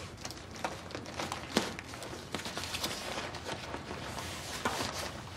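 Irregular light knocks, taps and rustling of things being handled at a desk, with a few sharper knocks scattered through.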